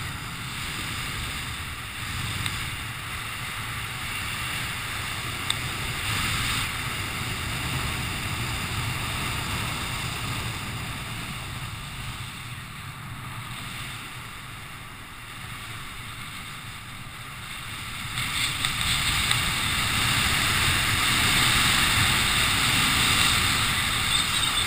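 Wind rushing over a camera microphone as a skydiver flies under an open parachute canopy, growing louder over the last several seconds of the descent down to touchdown on grass.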